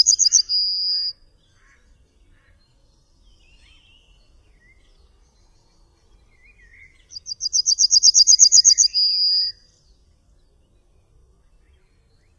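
Yellowhammer singing: a fast run of repeated high notes ending in one long held note. The end of one song comes in the first second, and a full song starts about seven seconds in.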